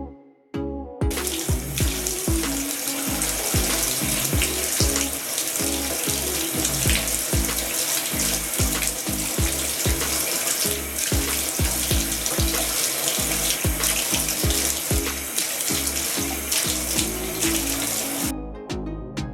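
Water running from a tap, coming on about a second in and shutting off about a second before the end, over background music with a steady beat.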